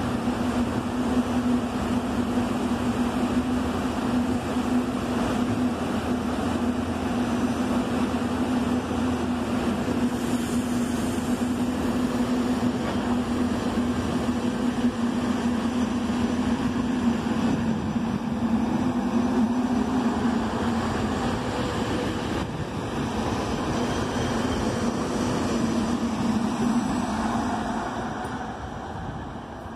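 SEPTA Silverliner IV electric multiple-unit commuter train pulling out of the station, with a steady hum and the noise of its wheels rolling on the rails. The sound fades near the end as the last car goes by and the train moves away.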